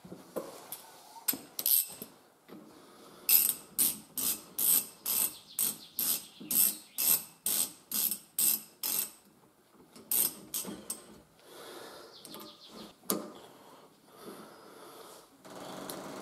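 Ratchet wrench being worked on the wheel hub, with a burst of clicks on each stroke, about two strokes a second for several seconds. After a short pause come a few more strokes, then a single knock.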